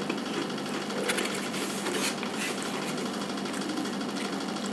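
A steady mechanical hum with a constant low tone, with faint soft chewing and the handling of food over it.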